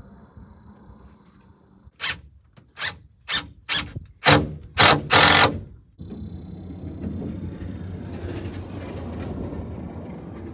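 Tool work on a wooden stud frame: a run of about seven sharp strikes that come quicker and grow longer, the last the loudest. It gives way abruptly to a steady hiss about two-thirds of the way in.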